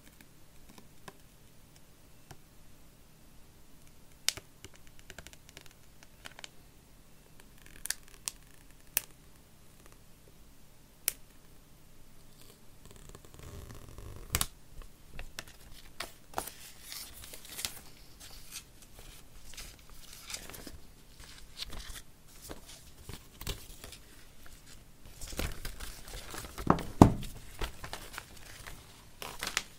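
Hands unpacking an iPhone box: scattered sharp clicks and taps, then stretches of packaging being torn and crinkled, with one louder knock near the end.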